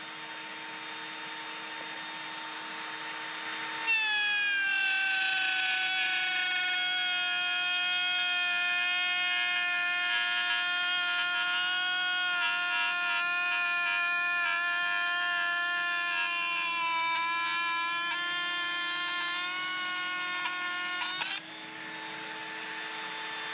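Milwaukee M18 cordless compact router running in a router table with its dust-extraction attachment fitted. About four seconds in its whine drops in pitch and gets louder as a board is fed past the spinning bit and the router cuts the wood under load. A little before the end it rises back to its free-running pitch.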